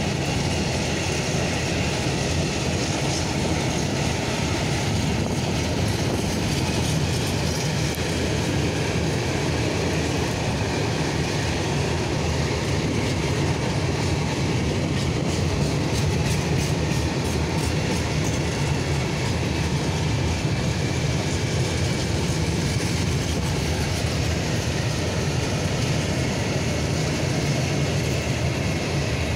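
A long freight train of open-top wagons rolling past at steady speed: a continuous rumble of wheels on rail with clattering from the wagons, even throughout.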